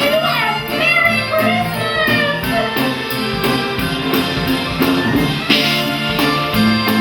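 Christmas stage-show music: a sung melody with vibrato over band accompaniment with a steady beat, the voice dropping out after about two and a half seconds while the instruments carry on.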